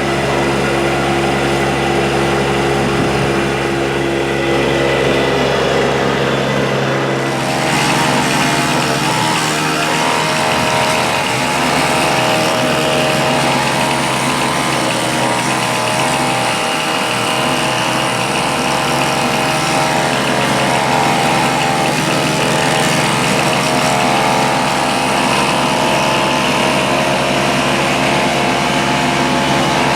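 An engine of the tree-removal machinery running steadily. About seven seconds in, the sound shifts: the deep rumble drops away and a higher, busier tone takes over.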